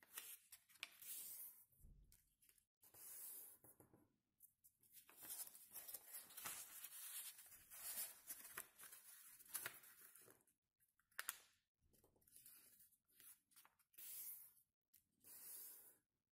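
Faint rustling and crinkling of a sheet of origami paper being folded and creased by hand, in irregular short bursts with brief pauses.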